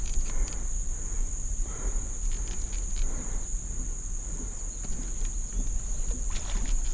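Insects chirring steadily at one high pitch, over a constant low rumble, with a few faint clicks near the end.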